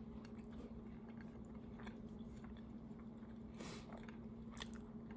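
Soft chewing and biting of a person eating braised ham, with a few faint mouth clicks scattered through, over a steady low hum.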